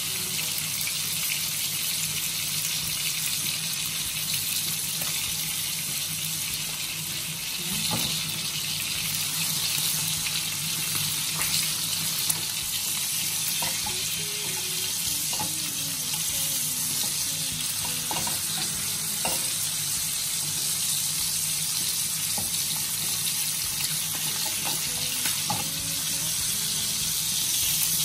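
Ribeye steaks sizzling in butter in a frying pan, a steady hiss. A few light clicks of a spoon against the pan as the butter is spooned over the steaks.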